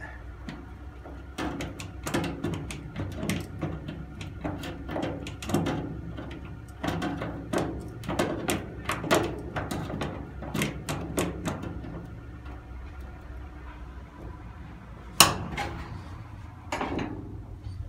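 Irregular clicks and knocks from the Mini's steel rear quarter panel as it is levered into line with locking pliers clamped on its edge, with one sharp, louder knock near the end.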